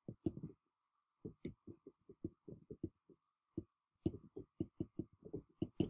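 Stylus tapping and stroking on a tablet screen during handwriting: a quick, irregular run of soft, short taps, over a faint steady tone.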